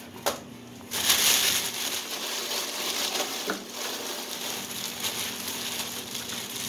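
Hands digging into a bag of ice in a freezer: plastic rustling and ice cubes crunching and clinking, starting about a second in after a single click.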